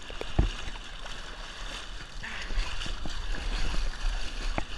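River water splashing and lapping close to the camera, with scattered small knocks and a steady low rumble.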